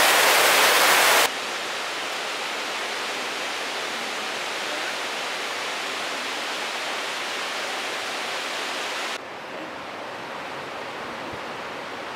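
Steady rushing water with no distinct events. It drops suddenly in loudness about a second in, and again about nine seconds in.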